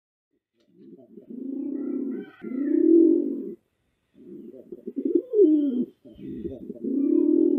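A dove cooing: four low, rounded coos, each swelling and falling away. They start about a second in, with a short break after the second coo.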